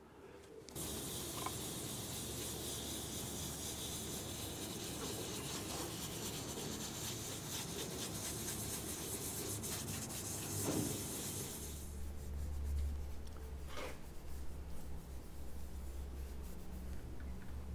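Scotch-Brite abrasive pad scrubbing an aluminum valve cover, working anti-corrosive gel in to strip fuzzy corrosion: a steady scratchy rubbing. About twelve seconds in the rubbing becomes softer and thinner, over a low hum.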